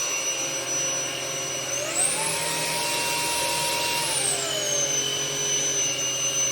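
Philips XC3031/01 cordless stick vacuum running: a steady high motor whine over a rush of air. About two seconds in, the pitch climbs to a higher speed, holds for around two seconds, then glides back down.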